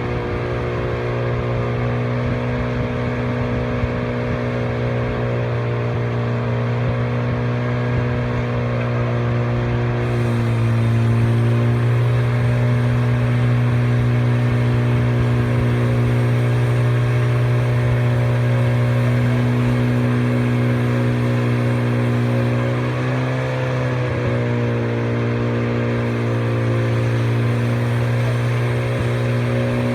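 Portable sawmill's engine running steadily, its pitch sagging briefly twice, as under the load of a cut, and recovering.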